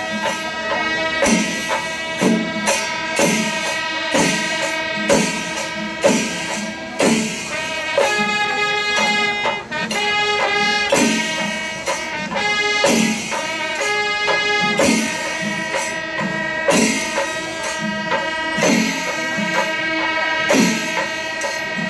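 Temple festival music: a wind instrument holds and steps between notes over drum strokes in a steady beat.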